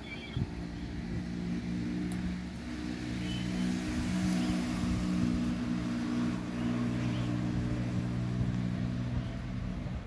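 A motor engine running with a steady low hum.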